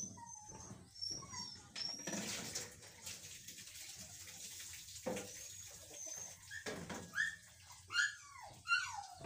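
Animal calls: high short chirps, then several loud whining calls that fall in pitch near the end.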